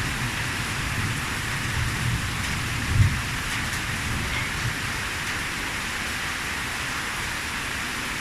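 Steady rain falling, with an uneven low rumble underneath and a short low thump about three seconds in.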